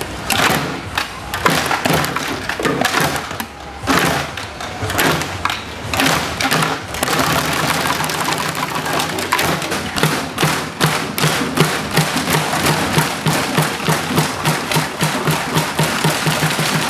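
Group drumming with sticks on recycled plastic crates, buckets and water jugs: irregular heavy hits at first, settling after about seven seconds into a steady, fast beat.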